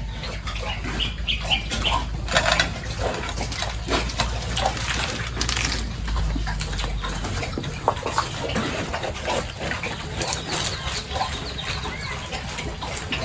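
Farm animals at feeding time: a jumble of short animal calls among many irregular clicks and knocks, over a low hum that stops about seven seconds in.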